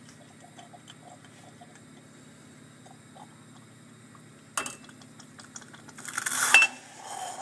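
Stainless-steel moka pot brewing on a gas burner over a faint steady hum. Its hinged metal lid clicks open about four and a half seconds in, then a short, loud rising hiss as the coffee spurts up the spout near the end of the brew, cut off by a metallic snap as the lid shuts.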